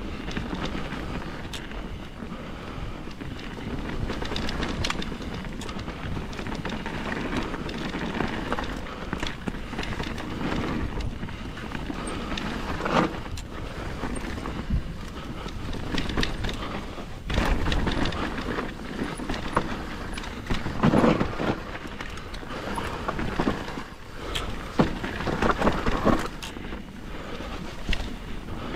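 Mountain bike descending a rough dirt trail: steady tyre and trail noise with rattles and knocks from the bike over bumps, and several louder bangs in the second half.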